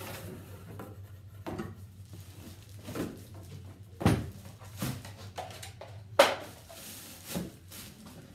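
Cardboard shoe box being opened and plastic wrapping handled as a boot is pulled out: a string of scattered knocks, scrapes and crinkles, the loudest a sharp knock about six seconds in, over a steady low hum.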